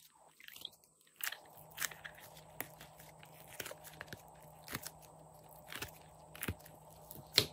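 Soft clay pieces being popped out of a silicone honeycomb mold and squeezed between the fingers: irregular sharp clicks and crackles, the loudest near the end, over a faint steady hum.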